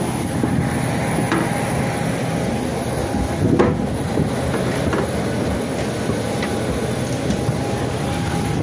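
Steady rumble and constant whine of a jet airliner running on the apron, with a few sharp clanks of footsteps on metal boarding stairs.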